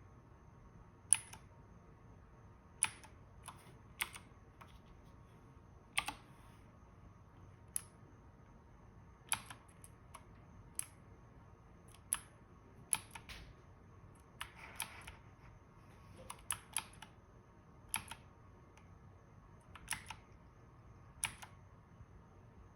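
Single key presses on a mechanical keyboard, each a sharp click, coming one at a time about every one to two seconds. There is a brief soft rustle a little past the middle.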